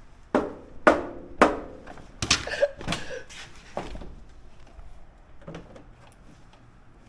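A wrench being knocked against a hard surface: about six sharp knocks in four seconds, the first few loudest.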